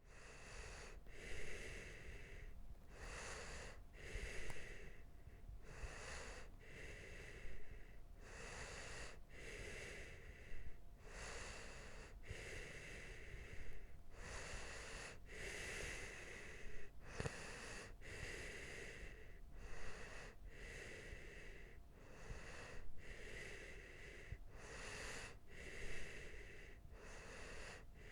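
A sleeping person's slow, noisy breathing: a breath in and a breath out, repeating about every two and a half to three seconds.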